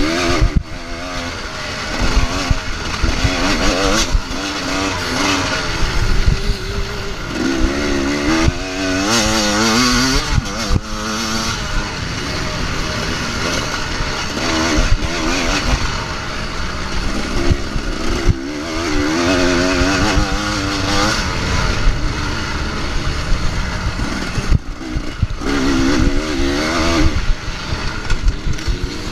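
Husqvarna dirt bike engine being ridden hard, revving up and dropping back again and again as the rider accelerates, shifts and brakes around a dirt track, heard close up from the handlebars.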